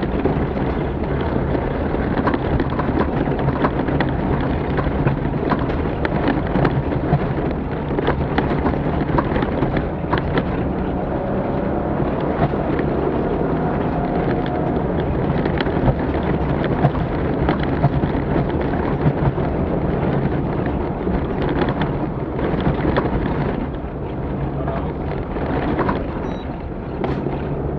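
Off-road rally vehicle driving over rough terrain: the engine runs steadily under a constant rumble, with frequent sharp knocks and rattles throughout.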